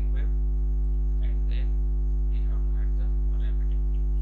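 Steady electrical mains hum on the recording, with a strong low tone and a ladder of higher steady overtones. Faint short voice-like sounds come and go over it.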